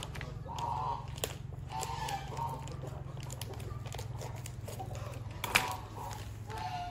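Poultry honking in short calls, a few near the start and again near the end, over a steady low hum. A paper flour bag rustles as it is cut open with scissors, with one sharp snip or crackle about five and a half seconds in.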